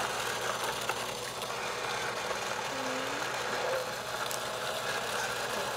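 Small electric motor of an egg-spinning decorator running with a steady hum as it turns an egg for painting.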